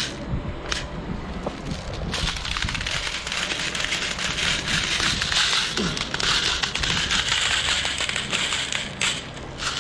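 Steady crackling, rustling noise close to the microphone, starting about two seconds in and stopping near the end, with a couple of short sharp sounds before and after it.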